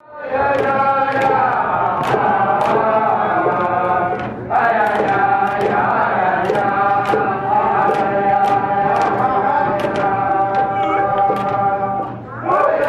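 Iñupiaq drum-dance song: a group of voices chanting in unison over frame drums struck in a steady beat about twice a second. The song breaks off briefly about four seconds in and again near the end, then starts again.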